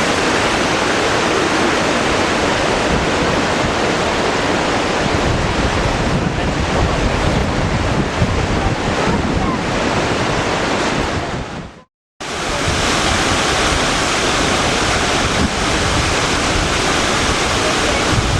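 Waterfall rushing in a steady, loud wash of falling water, with wind buffeting the microphone. About twelve seconds in, the sound fades out and cuts to silence for a moment, then resumes.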